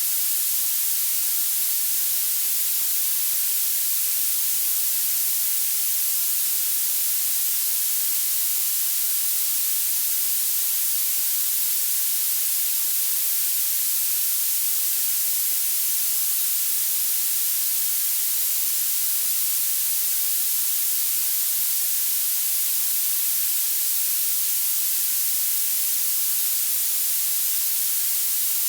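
Violet (purple) noise: a steady, even high-frequency hiss, weighted to the treble with almost no bass, constant throughout.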